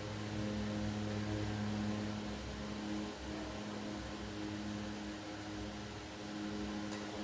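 Steady mechanical hum of a running motor over an even hiss.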